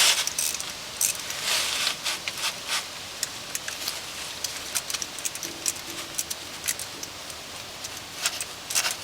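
Irregular light metallic clicks and clinks of a wrench working the 8 mm flange bolts of a CV-jointed front driveshaft, over a steady hiss.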